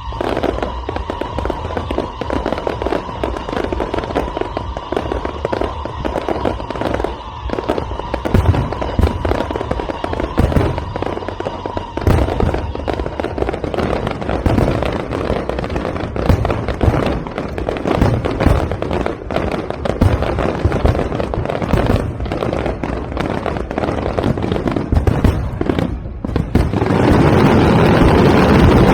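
Aerial fireworks bursting in rapid succession: a dense run of bangs and crackles, with a steady high whistle through the first half. Near the end it thickens into a loud, continuous wall of crackling.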